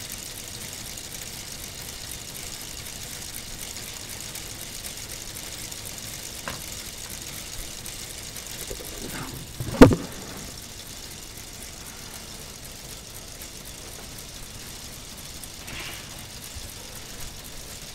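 A steady faint hiss, broken once about ten seconds in by a single sharp knock from the camera being handled and set down.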